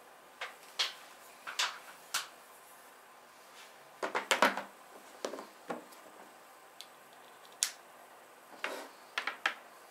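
Irregular sharp clicks and light taps of a MacBook Pro's white USB-C charging cable and plastic power adapter being handled, the cable being unwound and its ends knocking against the box and table.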